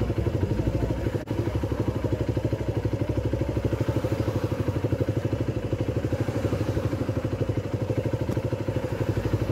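Motorcycle engine idling with the bike at a standstill, a steady, even, rapid beat of exhaust pulses, with a single brief click about a second in.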